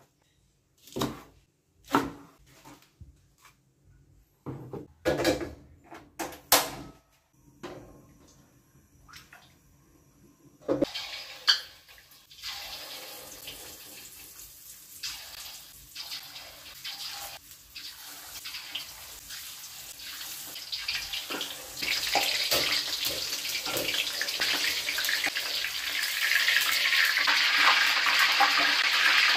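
A chef's knife cutting scallions on a plastic cutting board, separate chopping strokes about a second apart. About eleven seconds in, battered chicken pieces deep-frying in hot oil in a wok: a steady sizzle that grows louder.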